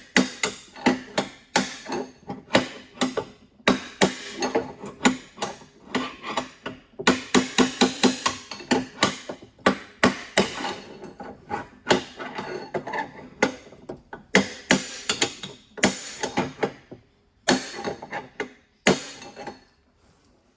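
Hammer striking a bearing punch to drive the old steering head bearing races out of a Honda CRF450R frame's head tube: a long run of sharp metal-on-metal blows, a few a second in bursts with short pauses, each ringing briefly. The blows stop near the end.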